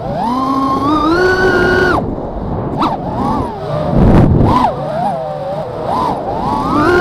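FPV racing quadcopter's brushless motors and propellers whining, heard from the onboard camera: the pitch climbs and holds high for about two seconds, drops abruptly, then rises and falls with the throttle and climbs again near the end. A short burst of rushing noise comes around four seconds in.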